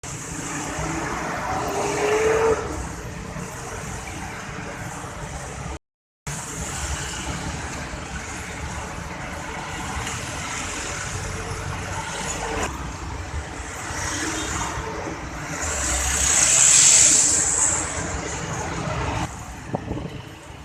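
Road traffic passing: engines and tyre noise from passing cars and motorbikes, with one louder vehicle swelling past near the end with a strong hiss. The sound cuts out briefly about six seconds in.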